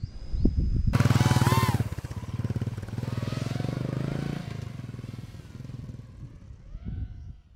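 A motorcycle engine revs hard about a second in, rising and falling in pitch. It then runs on steadily as the bike pulls away, fading over the last few seconds.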